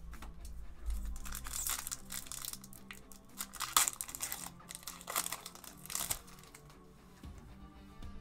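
Foil booster-pack wrapper crinkling and tearing as a Magic: The Gathering pack is opened: a run of crackles, loudest about four seconds in, that stops about six seconds in.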